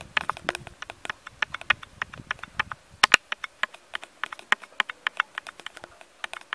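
Fingertip tapping and rubbing on a stethoscope chestpiece fitted with a home-made diaphragm cut from an aluminium drink can: a quick, irregular run of sharp clicks, the loudest pair about three seconds in. It shows the repaired diaphragm picking up sound again.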